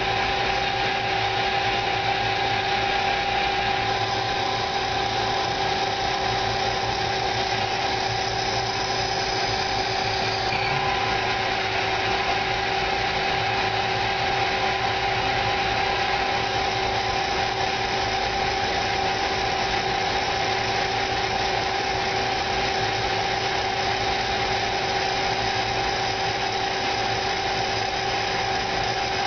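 CNC lathe running a live-tool-driven angle head for inside-diameter machining: a steady machine hum with two constant tones over a hiss, changing slightly about ten seconds in.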